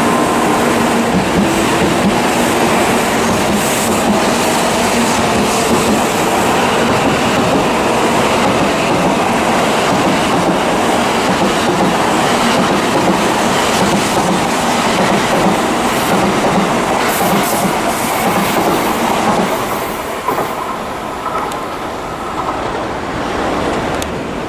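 N700A Shinkansen train running along the platform: a steady loud rush of wheels and running gear with a faint whine and scattered wheel clicks. It drops off about 20 seconds in.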